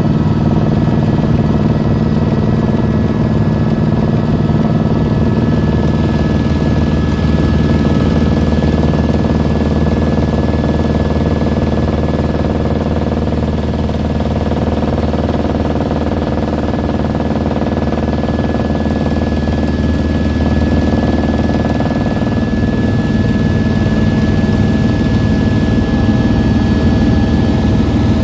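Helicopter in flight heard from inside the cabin: a steady drone of the turbine engine and rotor with a constant high whine over it.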